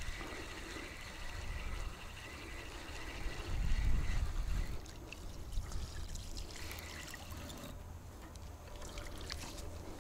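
Hooked golden crucian carp splashing and trickling at the water's surface as it is drawn through the shallows to the bank, with a louder low rumble about four seconds in.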